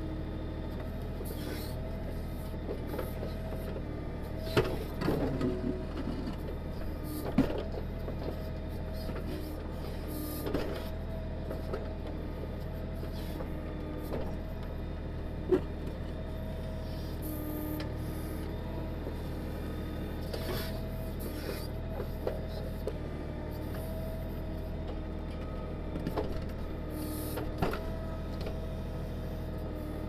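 Kioti DK6010 tractor's diesel engine running steadily while its Kioti KB2485 backhoe digs, with a hydraulic whine that comes and goes as the controls are worked. Scattered sharp knocks and scrapes of the steel bucket against rock and roots, the loudest about seven and fifteen seconds in.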